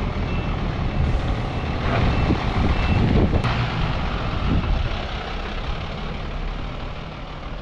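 Isuzu truck's diesel engine running as the truck moves, growing louder about two to three seconds in and then easing off. A reversing beeper sounds repeatedly for the first three seconds.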